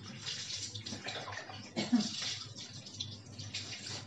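Water poured from a plastic dipper over a wet dog, running off its coat and splashing onto a tiled floor, with irregular splashes as the dipper is filled again from a basin. One sudden, louder sound about two seconds in.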